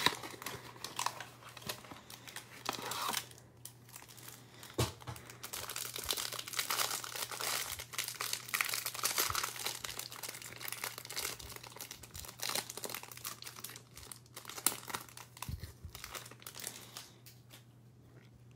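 A cardboard trading-card hanger box being torn open, then the plastic wrapper crinkling as it is pulled off the stack of cards, with scattered crackles and rustles. The crinkling is densest in the middle and dies away near the end.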